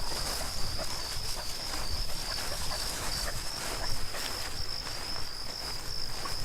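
Insects chirring in a steady high-pitched drone, with a closer layer of irregular rustling and crackling that cuts off suddenly just after the end.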